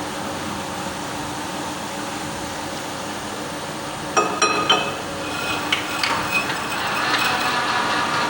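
Steady hum of a running manual lathe, broken about four seconds in by several sharp metallic clinks that ring on, with a few more soon after. Near the end a louder metallic ringing builds up over the hum.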